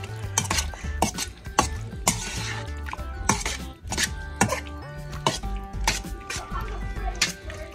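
A metal utensil clinking and knocking against a pan while food is stirred and mixed, in sharp strikes about every half second, over background music with a steady bass line.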